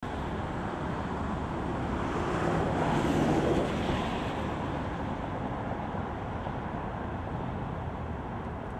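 Steady outdoor rushing noise and rumble, wind and passing-traffic-like, that swells briefly about three seconds in.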